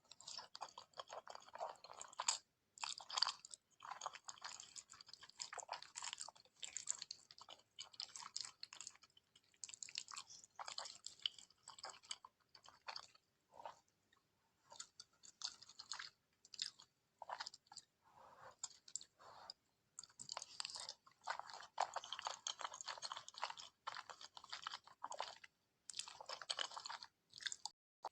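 Close-miked chewing of cheesy food: wet, sticky mouth sounds and soft crunches coming in irregular bursts with short pauses between bites.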